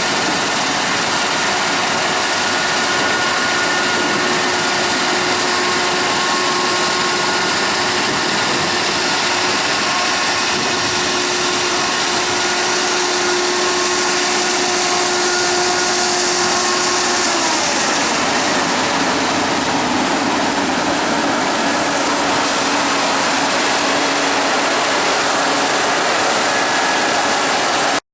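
Heavy farm machinery engine running steadily, with a few held whining tones that drop and change about two thirds of the way through.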